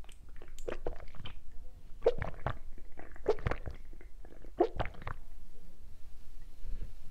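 Gulping a drink straight from a can: four swallows, about one every second and a bit, the last about five seconds in.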